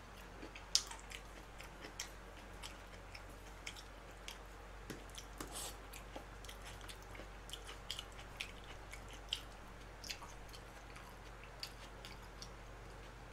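Faint sounds of a man eating: soft chewing with scattered small clicks and smacks at irregular intervals.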